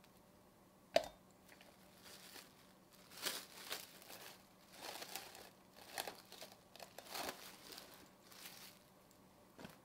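Plastic cling film crinkling and rustling in a series of bursts as it is stretched over the top of a glass measuring jug, after a single sharp knock about a second in.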